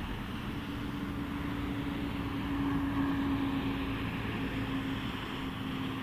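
John Deere 3650's six-cylinder diesel engine working hard, pulling a reversible plough through heavy, wet soil. It is a steady drone with one held tone that swells a little about halfway through.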